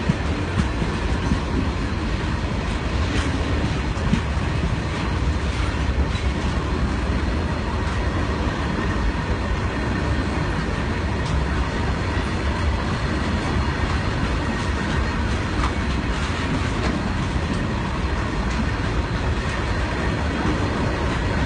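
Open-top freight wagons of an Indian Railways goods train rolling past close by: a steady rumble of steel wheels on the rails, with scattered sharp clicks and clanks.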